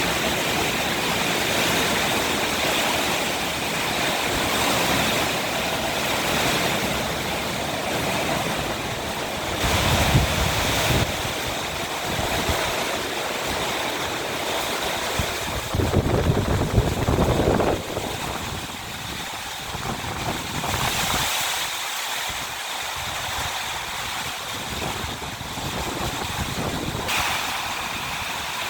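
Storm: heavy rain pouring and strong wind, a steady rushing noise. Gusts buffet the microphone with a low rumble about ten seconds in and again at about sixteen to seventeen seconds.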